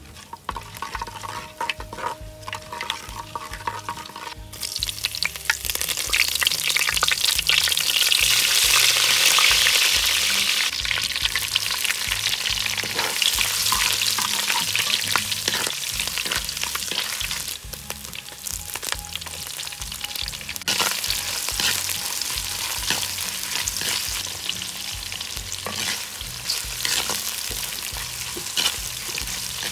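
Spices, curry leaves and pandan sizzling in hot oil in a clay pot, stirred with a coconut-shell spoon that clicks and scrapes against the pot. The sizzle jumps up about four seconds in as more ingredients hit the oil, eases off, then rises again about twenty seconds in.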